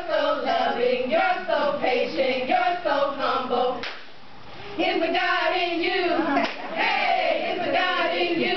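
A group of women chanting in unison in a sing-song, half-sung way, in two phrases with a short break about four seconds in.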